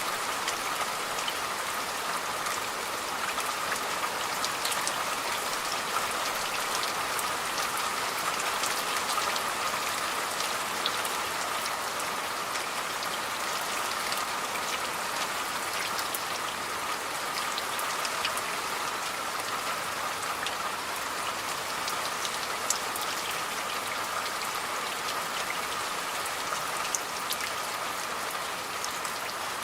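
Steady rain falling, an even hiss with many separate drops ticking sharply on a hard surface.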